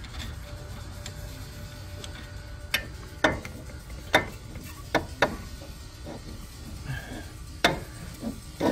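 Hand tools clicking and clinking against a car's front suspension parts during reassembly: about half a dozen separate sharp knocks, irregularly spaced, over a faint low hum.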